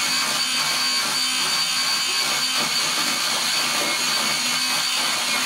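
Small electric pencil sharpener running steadily with a green colored pencil pushed into it, shaving the pencil.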